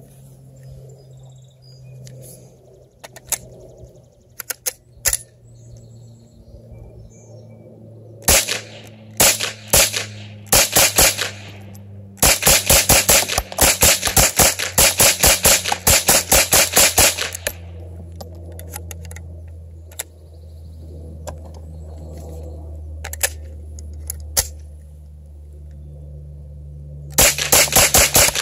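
GSG StG 44 semi-automatic .22 LR rifle firing: a few spaced shots, then a rapid string of about four to five shots a second for some five seconds, and another rapid string starting near the end. Faint clicks come before the first shots, and a steady low hum runs underneath.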